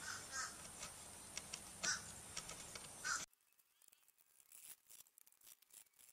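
Short scratchy strokes of sandpaper rubbed by hand along the slot of a varnished mahogany daggerboard, stripping the old varnish, with a few short bird calls over it. About three seconds in the sound drops to near silence with only faint ticks.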